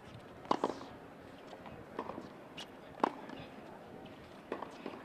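Tennis balls struck by racquets in a baseline warm-up rally on a hard court: a run of sharp pops a second or two apart, the loudest about half a second in and three seconds in, with quieter ball bounces between the hits.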